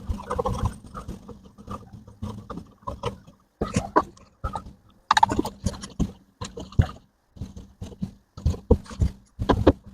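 Cloth rubbing and scraping on the small glass lens of a car's rear-view camera during cleaning. It comes as irregular short strokes with abrupt breaks.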